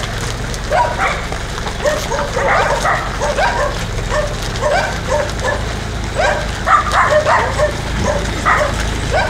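Dogs barking and yipping in quick, overlapping calls.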